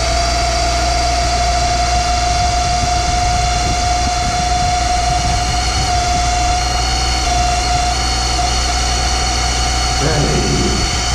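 Boyar-Schultz Challenger surface grinder running, its motor and spindle giving a steady high whine over a low hum. The owner takes the noise for unhappy spindle bearings.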